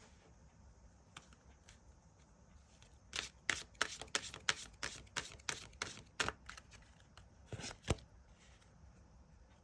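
Tarot cards being shuffled: a quick run of sharp card clicks starts about three seconds in and stops about five seconds later.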